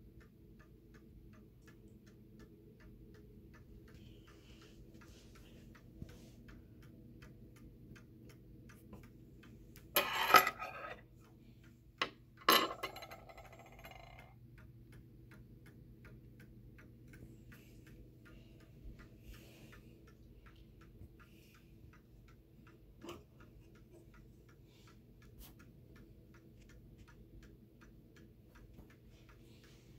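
Seth Thomas Adamantine mantel clock's wind-up movement ticking steadily. Two loud clattering knocks come about ten and twelve seconds in, and a lighter click comes later.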